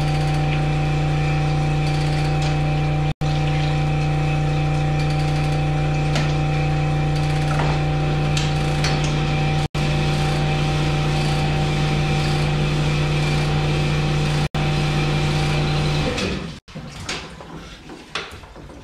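Cylinder King honing machine running, its honing stones stroking up and down in a cylinder bore of an LS engine block with a steady deep hum and a few higher steady tones. The machine stops about two seconds before the end, leaving quieter, irregular handling sounds.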